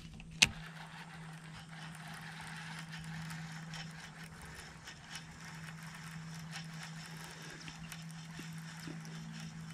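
Bow-mounted electric trolling motor humming steadily at one pitch, with a single sharp click about half a second in and faint light ticks as the baitcasting reel retrieves the lure.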